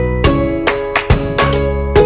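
Background music: strummed string chords on a steady beat, about two strokes a second.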